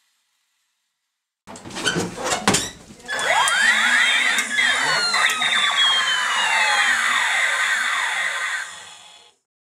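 Toy space guns firing their electronic sound effects: a few sharp clicks and knocks, then about six seconds of many overlapping tones sweeping down and up over a noisy hiss. The sound cuts off suddenly.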